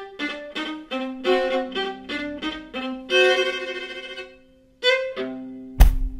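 Theme music on a fiddle: a quick run of short notes, a longer note, then after a brief pause two more notes, the last one held. Near the end a single sharp, deep thump, a stamp sound effect, lands over the held note.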